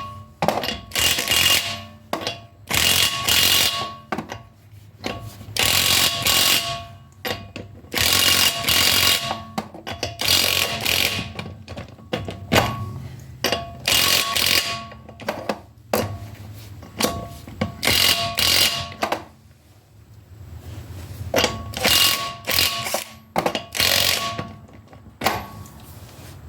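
Impact wrench hammering in about a dozen short bursts of roughly a second each, with a whine running through every burst, as it runs the wheel's nuts snug before final torquing with a torque wrench.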